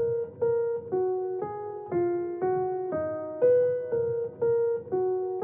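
Intro music: a simple melody of single keyboard notes, about two a second, each struck and fading.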